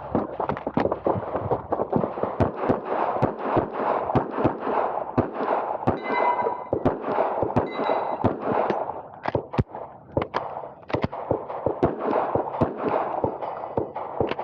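Dozens of 9mm pistol shots from a Glock 26, fired in quick strings during a USPSA stage run, with a short lull a little past halfway. A ringing ping follows some of the shots.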